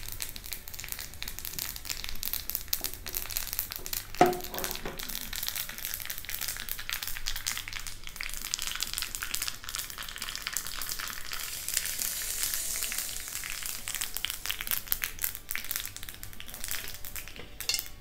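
Mustard seeds sputtering and popping in hot oil in a small tempering pan: a dense, continuous crackle. One sharp knock comes about four seconds in.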